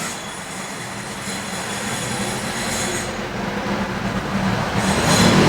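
Heavy truck running, its steady low engine hum overlaid by a thin high-pitched squeal that fades about three seconds in and comes back near the end.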